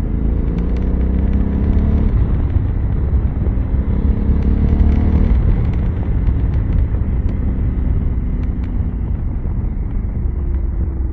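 2021 Honda Africa Twin's parallel-twin engine running under way with road noise; its pitch rises and then drops about five seconds in.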